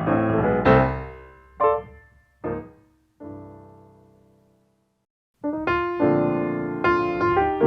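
Piano music from a jazz film score. One piece ends with two short chord stabs and a final chord left to ring out, then there is about a second of silence. A new piano piece begins about five and a half seconds in.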